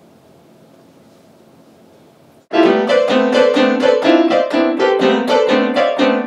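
Faint hiss, then about two and a half seconds in, piano music starts suddenly with quick, evenly repeated notes and chords.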